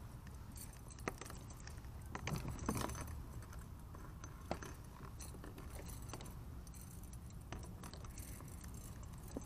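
Metal chain fish stringer clinking and rattling while it is handled, in a few scattered clicks over a low steady rumble.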